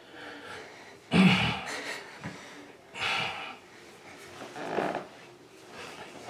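Heavy breathing and strained grunts from two men grappling on the floor. Three loud, forceful exhalations come about a second, three seconds and just under five seconds in, the first the loudest.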